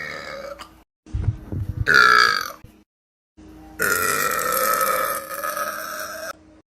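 A woman belching loudly, one belch after another: the end of one belch, a short belch about two seconds in, then a long drawn-out belch of about two and a half seconds from about four seconds in. Abrupt dead silences separate them.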